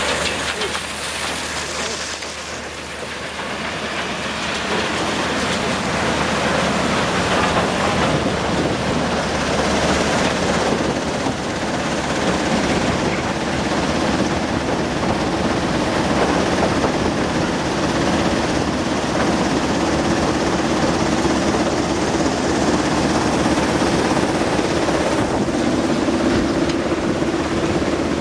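Alluvial gold washing plant at work: a steady rush of water and slurry over the equipment mixed with the low hum of running machinery, with a steady drone joining about halfway through.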